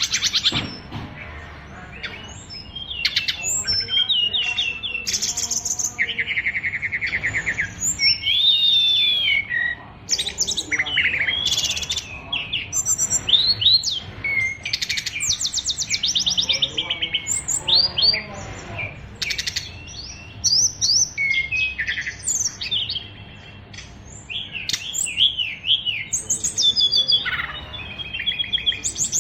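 An SRDC songbird singing almost without pause: a fast, ever-changing stream of chirps, rapid trills and whistled rising and falling notes, full of learned songs of other birds ('isian luber').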